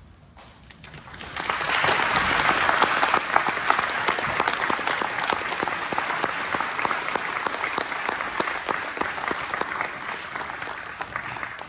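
Audience applauding: dense clapping that swells about a second in and slowly thins toward the end.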